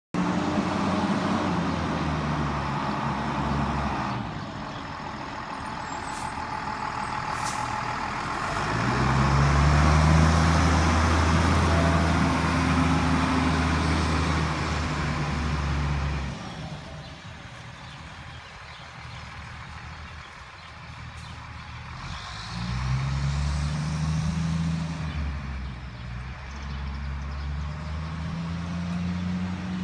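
Fire truck diesel engines accelerating past, each engine's pitch rising and then levelling off, several times over, with road noise.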